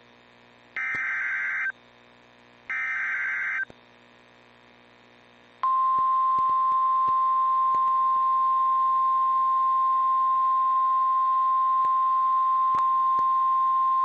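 Emergency alert broadcast: the last two of the three SAME digital header bursts, each about a second of buzzy data tones, a second apart. About two seconds later the NOAA Weather Radio 1050 Hz warning alarm starts, a single steady tone that holds. Together these signal that a warning, here a severe thunderstorm warning, is about to be read.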